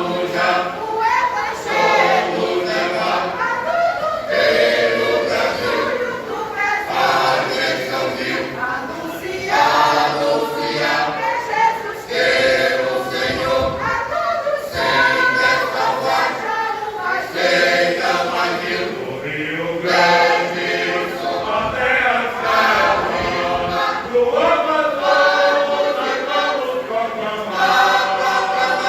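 A mixed church choir singing a gospel hymn in Portuguese, many voices together in parts, with little or no instrumental backing.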